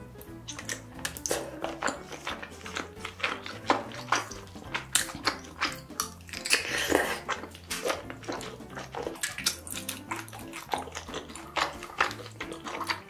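Wet chewing and biting of soft, sauce-coated food: a rapid, irregular run of sticky smacks and squelches. Faint background music with a low bass line plays underneath.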